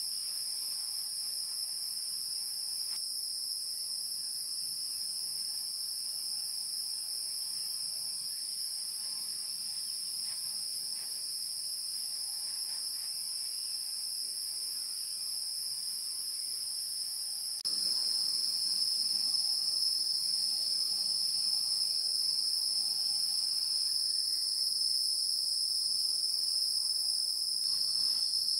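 Insects trilling in a steady high-pitched drone. About two-thirds of the way through it suddenly gets louder and slightly lower in pitch.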